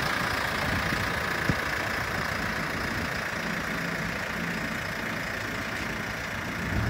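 JCB 3CX Sitemaster backhoe loader's diesel engine idling steadily, with one short click about a second and a half in.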